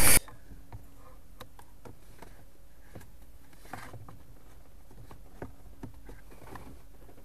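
Faint scattered clicks and light knocks of plastic parts being handled while the heater blower motor is fitted back into its housing, over a low steady hum.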